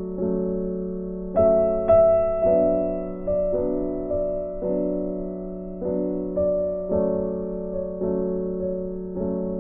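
Background piano music: a slow piece, notes and chords struck about every half second and left to fade.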